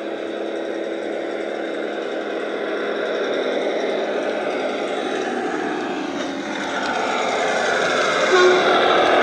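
DCC sound decoder playing a recorded German MAN Schienenbus diesel railbus engine through a small EM2 speaker inside a model GWR parcel car, running steadily and getting louder toward the end as the model approaches.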